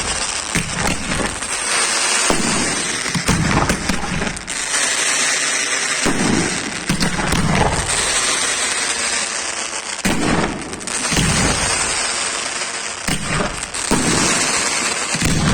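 Fireworks display: a dense, unbroken run of many overlapping bangs and crackles.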